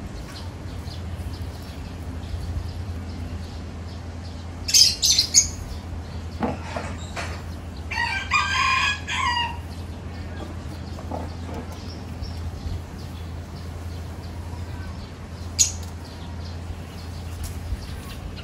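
A rooster crowing once, about eight seconds in, over a steady low hum. Short sharp clicks come about five seconds in and again near fifteen seconds.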